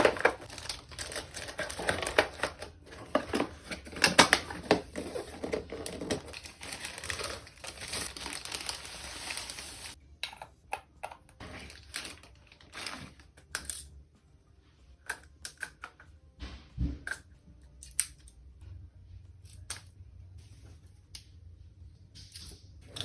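Camera packaging being unboxed by hand: plastic and paper crinkling and tearing, dense for about the first ten seconds. After that it thins to scattered clicks and light knocks as items are handled.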